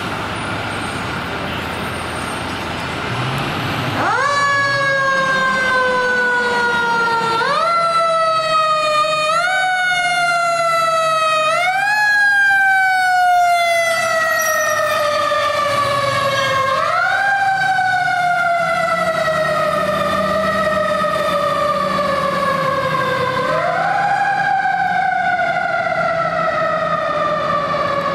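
Fire engine siren over street traffic noise. From about four seconds in, the siren's pitch repeatedly rises quickly and then winds slowly down, again and again.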